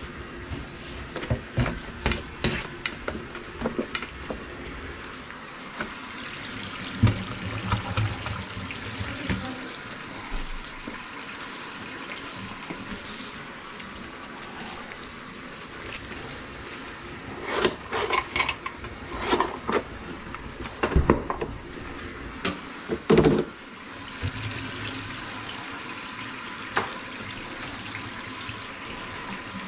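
Water running into a kitchen sink, with scattered clanks and knocks, the loudest coming in a cluster about two-thirds of the way through.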